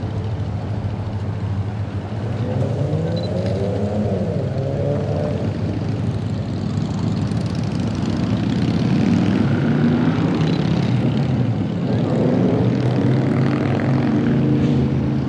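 An engine running steadily with a low hum. Its pitch rises and falls briefly a few seconds in, and it grows louder about halfway through.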